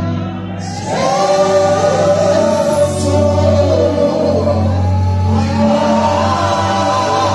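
Live gospel worship singing by a group of singers over keyboard accompaniment. The voices come in together about a second in, above steady, held low keyboard notes.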